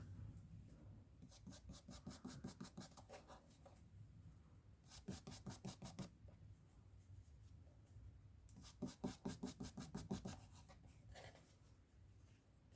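Ink blending brush swished quickly back and forth over paper and a torn tissue-paper mask, in three faint runs of rapid strokes, blending ink into cloud shapes.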